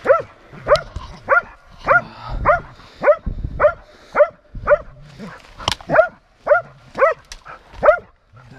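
Hunting dog barking steadily at a shot wild boar down in the thicket, baying it with a regular run of short barks, nearly two a second.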